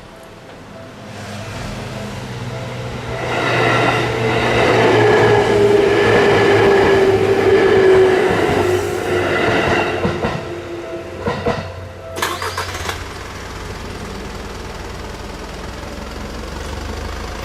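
Seibu Tamako Line electric train passing over a level crossing. Its running noise builds over a few seconds, holds with a slowly falling tone, then fades. A short clatter of sharp clicks comes about two-thirds of the way through.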